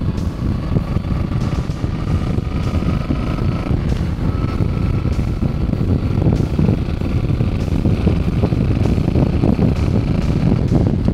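Cruiser motorcycle engine running steadily at road speed, with wind buffeting the handlebar-mounted microphone.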